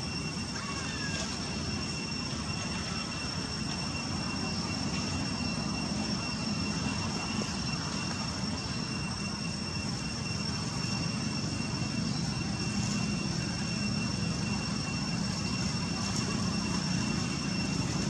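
Steady outdoor background: a low rumble, growing slightly louder towards the end, with two constant thin high-pitched tones above it.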